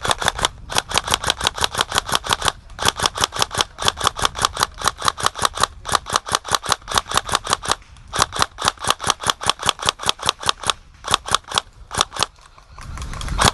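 Airsoft gun firing on full auto, a rapid rattle of about a dozen shots a second in several long bursts with short pauses between them.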